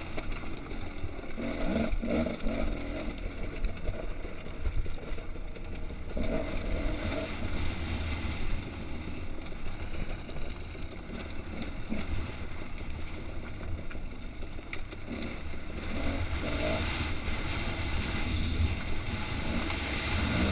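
Dirt bike engine running as the bike rides over rough, rocky ground, with steady low wind rumble on the helmet-mounted microphone.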